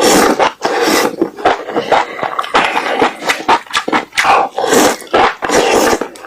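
Close-miked eating: spicy enoki mushrooms chewed and slurped with wet mouth smacks, several short bursts a second.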